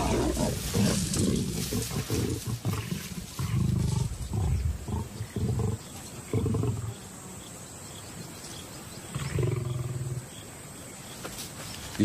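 Lions growling and snarling at each other in a string of short, low, rough bursts, quieter for a few seconds in the second half: a squabble over food at a carcass.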